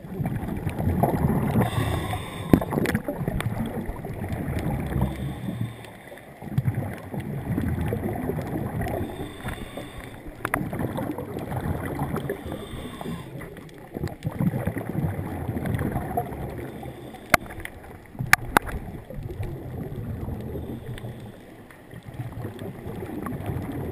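Muffled underwater noise through a GoPro's waterproof housing: water rushing and sloshing around it as a snorkeler swims, swelling and fading every few seconds. A few sharp clicks come about three-quarters of the way through.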